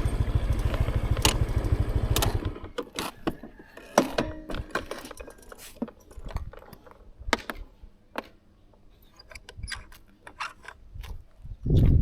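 Small motorbike engine running at idle, then stopping suddenly about two and a half seconds in, followed by scattered light clicks, jangles and knocks, and a short low rumble right at the end.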